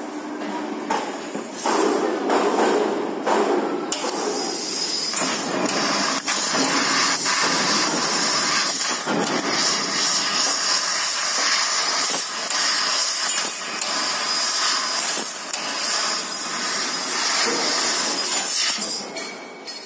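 Fiber laser cutting machine cutting stainless steel sheet: a steady, loud hiss from the cutting head sets in about four seconds in, with scattered sharp clicks and knocks from the machine.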